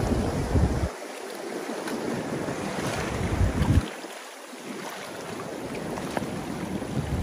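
Wind buffeting the microphone in low rumbles that drop away twice, over the steady wash of small waves breaking against rocks.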